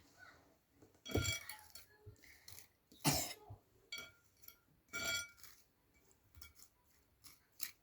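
Clinks of the doll and comb knocking against the bowl of water: three ringing knocks about two seconds apart, with fainter knocks between.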